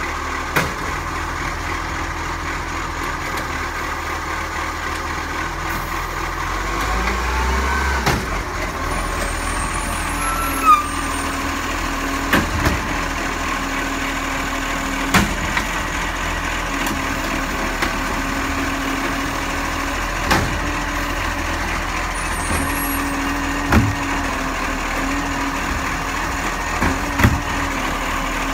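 Iveco side-loader garbage truck's diesel engine running steadily while its hydraulic side arm lifts and empties wheelie bins. A steady low hydraulic hum runs under sharp knocks and clunks of the bin and arm every few seconds.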